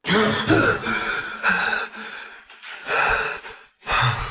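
A man gasping and breathing hard in fright, about five or six heavy, ragged breaths with short breaks between them.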